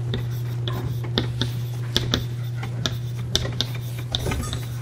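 Chalk writing on a blackboard: a run of irregular, sharp taps and short scratches as the chalk strikes and drags across the slate, over a steady low hum in the room.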